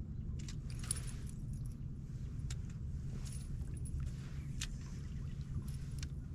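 Light metallic jangling and scattered clicks of fishing tackle as an angler works an A-rig rod, over a steady low rumble.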